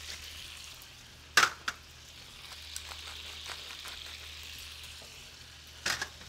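Asparagus and shallots with white wine and chicken stock sizzling steadily in a sauté pan over high heat. A sharp clink comes about a second and a half in, a lighter one just after it, and a few more near the end.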